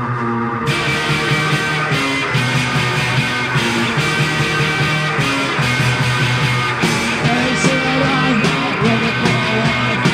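Punk rock recording: the full band of drums with cymbals, bass and guitar comes in under a second in and plays on at a steady driving beat.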